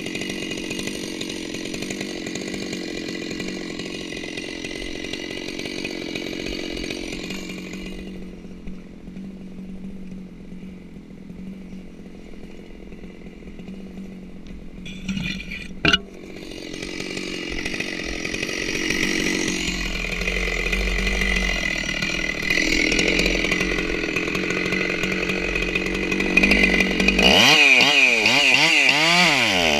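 Stihl 064 two-stroke chainsaw idling, with one sharp knock about halfway. Near the end it revs up and cuts into a redwood trunk, its engine pitch wavering up and down under load.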